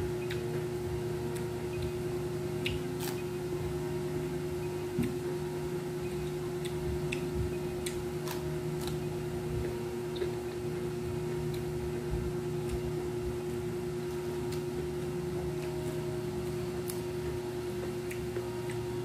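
A person eating crispy fried crab: chewing and crunching, with scattered sharp clicks at irregular moments, over a steady low hum.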